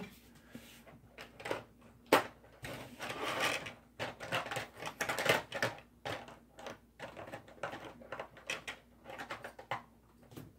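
Plastic model-kit sprues being handled and packed back into their box: irregular clicks and clacks of hard plastic parts knocking together, with short bursts of rustling.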